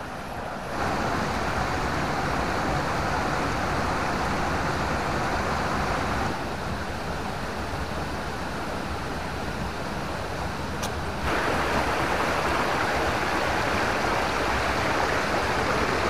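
Steady rush of water from a rocky stream, its level jumping up or down abruptly a few times.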